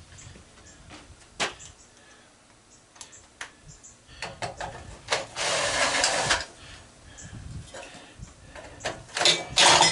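Hand tools and metal parts being handled: scattered knocks and clicks, a scraping rattle lasting about a second some five seconds in, then loud metal clanking near the end.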